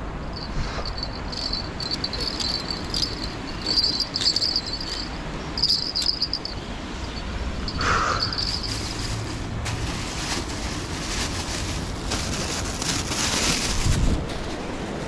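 Insects chirping in short, repeated high-pitched bursts over a steady low rumble. In the second half the chirps give way to a run of crackling and rustling noises, loudest near the end.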